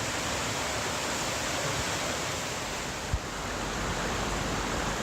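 Steady rushing of a mountain river's flowing water, recorded on a cell phone. A brief low thump about three seconds in.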